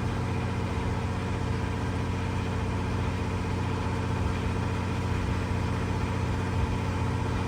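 Westerbeke diesel generator running steadily with an even hum, carrying the boat's electrical load.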